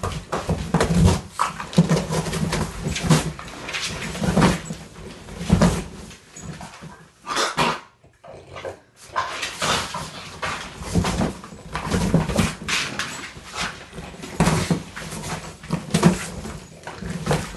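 French bulldog tearing and chewing a cardboard box: repeated ripping and crunching of cardboard, with low growls between the rips. The tearing stops briefly about eight seconds in, then resumes.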